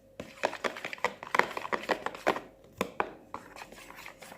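A utensil clicking and scraping irregularly against a container while a slime mixture is stirred.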